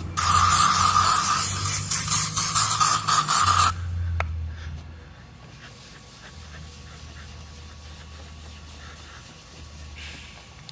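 Aerosol can of OFF bug spray sprayed onto a plastic headlight lens in one long hiss of about three and a half seconds. After it stops, a rag rubs quietly over the lens.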